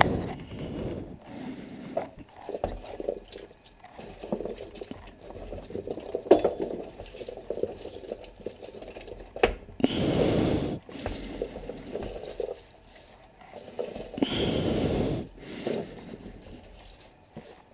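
Chopped vegetables tipped and pushed by hand from a plastic container into a cast-iron pot of tomato broth: irregular plops, small splashes and knocks of the plastic tub, with two longer rushes of vegetables sliding into the liquid about ten and fourteen seconds in.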